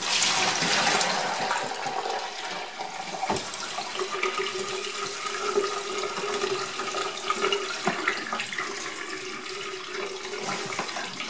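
Dirty wash water pouring from a plastic tumbling barrel into a stainless steel bowl and overflowing into a sink: a steady splashing stream, loudest in the first couple of seconds. This is the wet tumbler's wash water being drained after an hour of tumbling brass cases with stainless steel pins.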